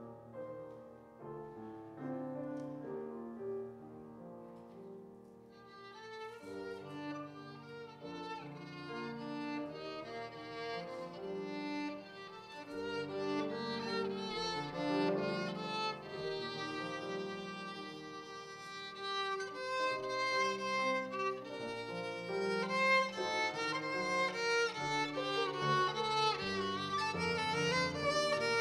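Violin and grand piano playing together. The piano starts alone, the violin comes in about five seconds in, and the music grows louder toward the end.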